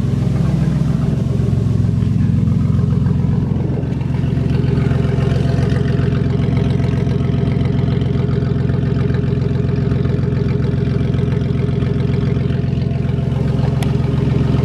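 Old Ford van's engine idling steadily and running smoothly, with a slight dip in loudness about four seconds in.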